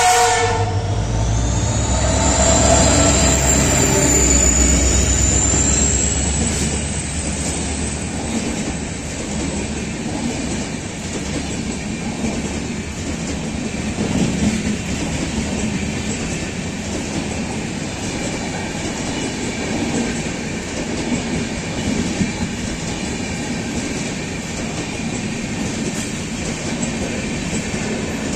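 A WDP4 diesel locomotive passes at speed, sounding a short horn blast whose pitch drops away. Its 16-cylinder two-stroke engine gives a heavy rumble with a high whine rising over it for the first several seconds. Then the passenger coaches rush past with steady wheel clatter on the rails.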